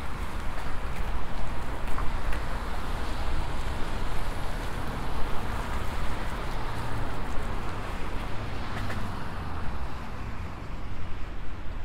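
Steady city street noise from passing traffic, with wind rumbling on the microphone of a moving bicycle.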